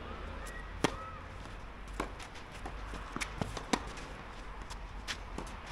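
Tennis ball struck by rackets and bouncing on the court during a rally: a series of sharp pops at uneven intervals, the loudest about a second in.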